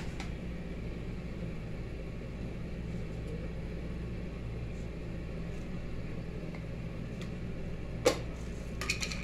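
Steady low mains-type hum in a kitchen, with one sharp knock about eight seconds in and a few light clicks just after.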